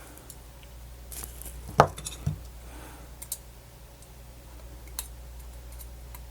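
Small hard clicks and taps of tiny parts being handled and set in place during reassembly of a portable MiniDisc player, with the sharpest knock about two seconds in and a few lighter clicks after, over a low steady hum.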